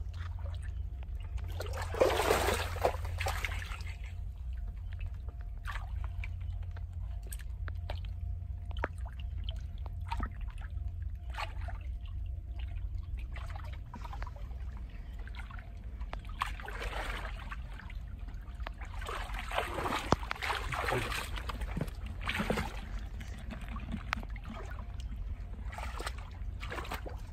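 Shallow muddy water trickling and sloshing as a person wades and works through it, with several louder splashes, the biggest about two seconds in and again around twenty seconds, over a steady low rumble.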